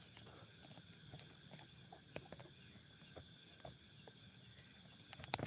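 Faint, steady chorus of night insects, with scattered light ticks and a sharper click near the end.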